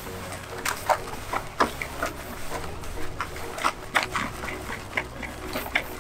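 Hands kneading and mixing damp feeder groundbait in a plastic bucket: irregular wet squelches and crackles, several a second, as the groundbait is worked with water during its second wetting.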